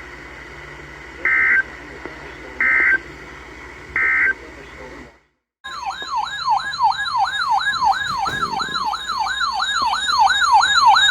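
Three short Emergency Alert System data bursts, about a second and a half apart: the end-of-message code over a radio receiver's hiss. Then, after a brief dead gap, a loud siren-like alert tone starts, sweeping up and down about three times a second.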